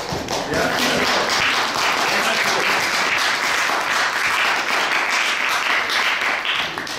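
Audience applauding: dense, steady clapping that builds in the first half-second and thins out near the end.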